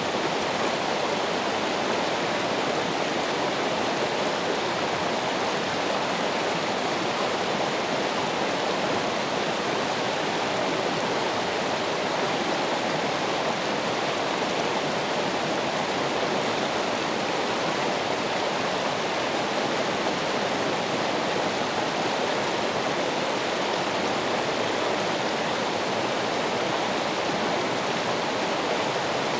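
Running water, flowing in a steady, unbroken rush with no changes.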